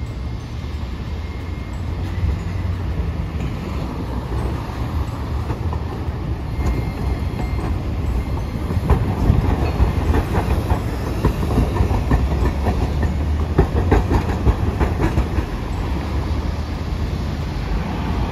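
An articulated low-floor Hiroden street tram rolling past, its low running rumble overlaid with a quick run of wheel clacks as it crosses the rail junction. Road traffic runs beneath it.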